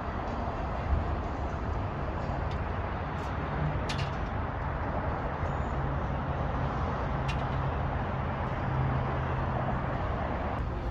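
Steady low drone of a cruise boat's engine under a rushing haze of wind and water noise on the microphone.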